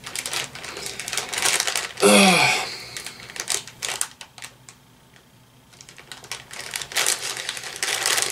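Plastic instant-ramen package crinkling and crackling as it is handled and turned over, in spells with a short lull in the middle. About two seconds in, a man's voice gives one brief hum that falls in pitch, the loudest moment.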